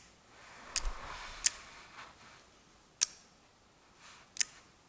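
An opened automotive relay clicking as it is switched on and off, its armature and contacts snapping closed and open: four sharp clicks, the first and last doubled. Clicking like this shows the relay is working.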